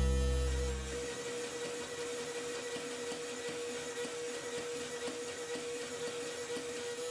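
Hydraulic forging press power unit running, its electric motor and pump giving a steady whir with a constant tone. A deep, heavy hum fades out about a second in as the press comes off load, leaving it idling between presses.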